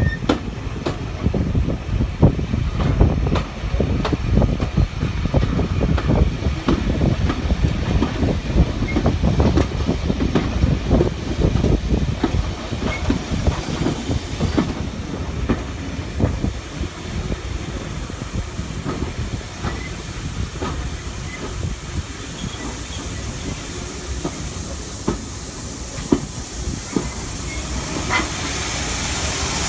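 Steam-hauled heritage train on the move, its wheels and coaches rattling and clanking with many short knocks. Near the end a hiss of steam grows louder.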